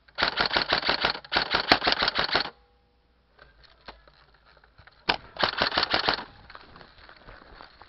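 Airsoft rifle firing rapid full-auto bursts, a fast rattle of clicks: two bursts back to back, then a third about five seconds in.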